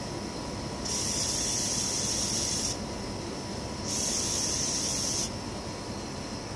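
A spray hissing in two bursts, the first about two seconds long and the second about a second and a half, over a steady mechanical background noise.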